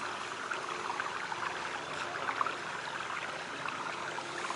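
Water running and splashing steadily, with a dense patter of small trickling drops.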